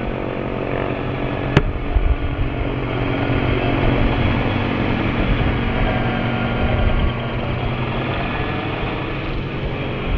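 Electric radio-controlled helicopter (Align T-Rex 500E) in flight: a steady whir of the spinning rotor blades with the motor and gear whine. It grows louder toward the middle and drops a little about seven seconds in, with one sharp click about a second and a half in.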